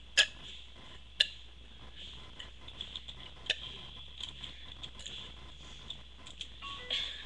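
A woman's throat making sharp, short gulping clicks as she swallows air to work up burps without soda: two loud ones in the first second and a half, another a few seconds in, and smaller ones between. A brief small pitched sound comes near the end.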